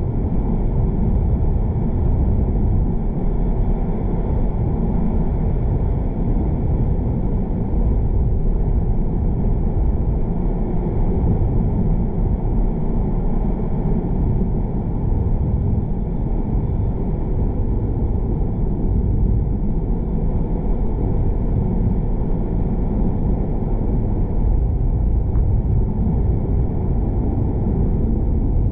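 Steady low road and engine rumble of a car being driven.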